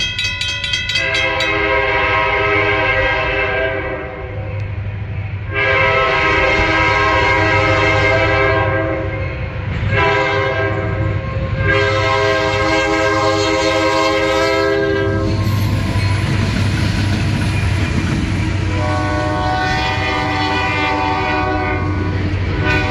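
Multi-chime air horn of a diesel locomotive blowing the grade-crossing signal: two long blasts, a short one and a long one, then another long blast near the end. Under it runs the steady low rumble of the EMD SD50-2 diesel engines as the train draws close and passes.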